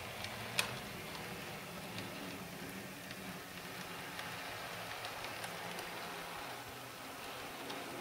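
OO gauge model two-car diesel multiple unit running on DC track: a steady low motor hum with a scatter of light clicks and ticks from the wheels on the rails, one sharper click about half a second in.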